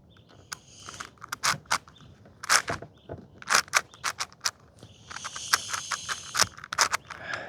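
Plastic layers of a 6x6 Rubik's cube being turned, giving irregular quick clicks with a longer run of sliding, scraping plastic about five to six and a half seconds in.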